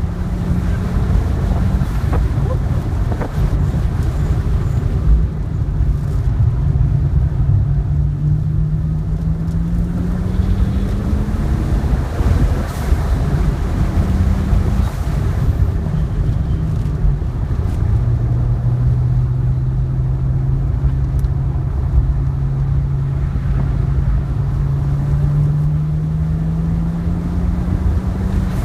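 A 2010 BMW 3 Series engine pulling hard on a race track, heard from inside the cabin. Its note climbs slowly in pitch, drops sharply about twelve seconds in and again around eighteen seconds in as the driver shifts or lifts for corners, then climbs again. Wind and tyre noise run steadily underneath.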